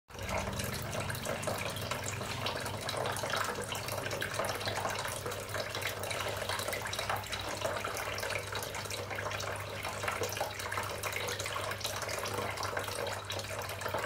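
Small streams of water falling from the spouts of a tabletop cement waterfall fountain and splashing into its basin, a steady trickle with a low steady hum underneath.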